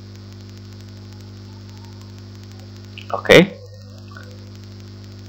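Steady electrical mains hum: a constant low buzz with a stack of overtones, unchanging in pitch and level.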